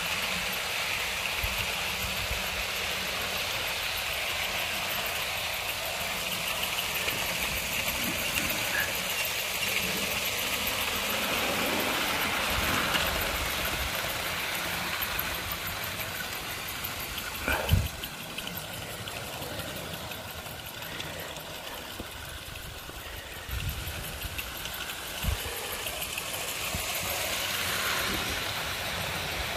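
OO gauge Bachmann GWR Manor model trains running on garden track: a steady whirr of the locomotives' motors and wheels rolling on the rails. There is a sharp knock a little past halfway and a lighter one near the end.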